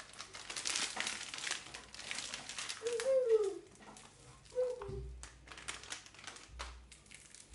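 Thin plastic packaging crinkling and rustling as a block of puff pastry is pulled out of its wrapper and handled. Two short, falling voice-like calls come through about three seconds in and again a little later.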